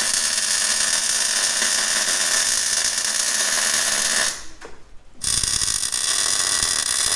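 Electric arc welding on steel: a steady crackling sizzle from the welding arc. It breaks off about four seconds in and starts again about a second later as the next bead is laid.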